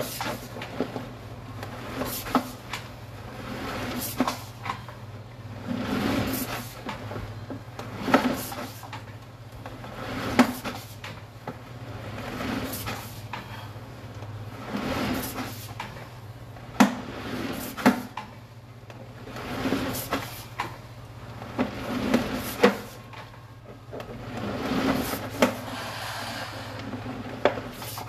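Sewer inspection camera's push cable being pulled back through the drain line: irregular knocks and clatters coming in surges every second or two, over a steady low hum.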